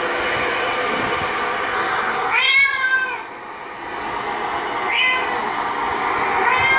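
Cat meowing in a cat video played on a computer: one long meow that rises and falls about two and a half seconds in, a shorter one about five seconds in, and another starting near the end, over a steady background hiss.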